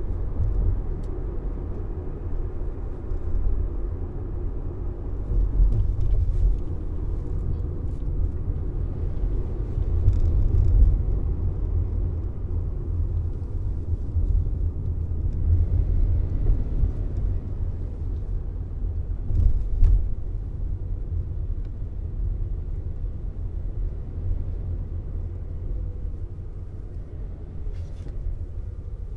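Steady low driving rumble of a 2021 Subaru Forester Sport, a mild-hybrid 2.0-litre e-BOXER with CVT, under way: road, tyre and engine noise, swelling a few times.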